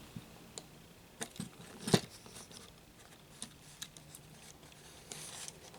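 A plastic action figure being handled and posed: scattered faint clicks and taps of plastic parts and joints, with one sharper click about two seconds in.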